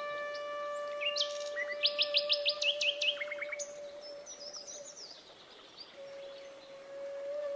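Meditative background music: a long-held flute-like note with birds chirping over it. A quick run of rapid chirps starts about a second in, then higher warbling fades out. The level dips briefly before the held note swells again near the end.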